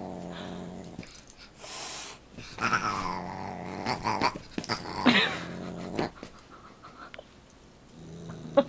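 A dog growling while play-fighting with a cat, with louder vocal outbursts about two and a half seconds and five seconds in.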